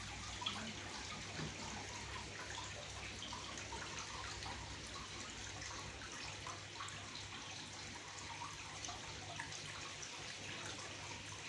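Water trickling and dripping steadily in a paludarium, lots of small irregular drips, over a faint steady low hum.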